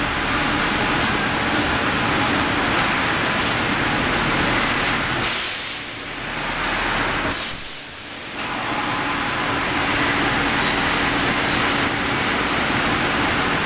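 Steady loud din of a hot-rolling section mill making angle steel: rolling stands running with a low hum while cooling water sprays hiss onto the red-hot steel and flash to steam. Midway a sharp hiss comes twice, each followed by a brief drop in the noise.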